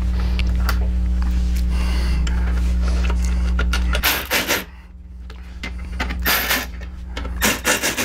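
A steady low hum for about four seconds, then a cordless screwdriver driving the license plate frame screws in several short, rasping bursts.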